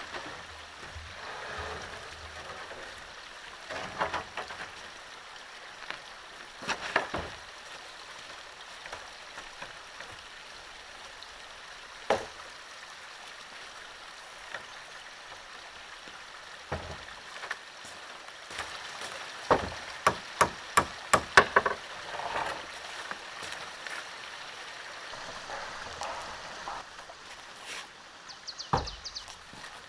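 A stream running steadily, with scattered wooden knocks and, about two-thirds of the way through, a quick run of about eight sharp taps.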